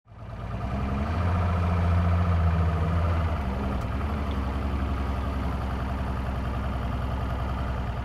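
Boat motor running steadily at low speed, fading in at the start with a low, even drone. It eases slightly after about three seconds.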